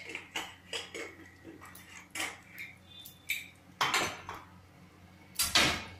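Mustard seeds crackling and popping in hot oil in a non-stick kadhai at the tempering (tadka) stage, as irregular sharp pops. A louder knock comes near the end.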